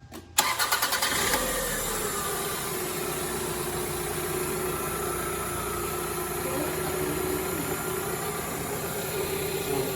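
2000 Toyota Camry four-cylinder engine starting up, with a short pulsing burst as it catches, then settling into a steady idle. Its cylinder 3 misfire has been cured by a replacement fuel injector.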